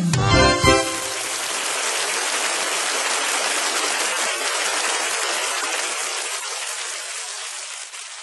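Music ends on a last chord about a second in, then a steady rushing hiss of noise, like rain or gushing water, takes over and slowly fades out near the end.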